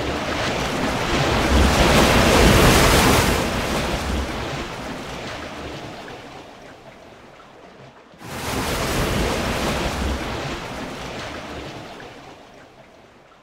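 Ocean surf washing in twice: a long swell of wave noise that builds and slowly fades, then a second one that starts suddenly about eight seconds in and fades out.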